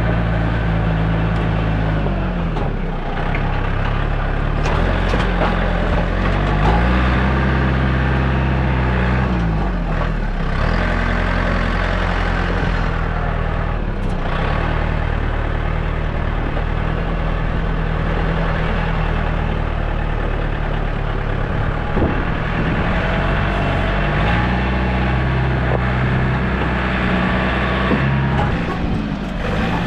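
Large engine of heavy machinery running loudly, its speed dropping and rising again several times.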